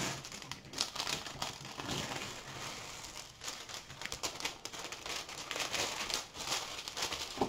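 Clear plastic cover film on a diamond painting canvas crinkling and rustling in irregular crackles as it is lifted and handled.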